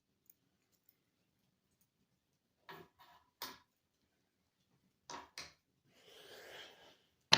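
Faint handling noises: a few short separate clicks and taps, then a soft rustle, and a sharp click near the end.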